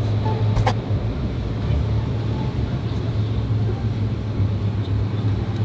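Steady engine and road drone heard from inside a moving car's cabin, with a brief click about half a second in.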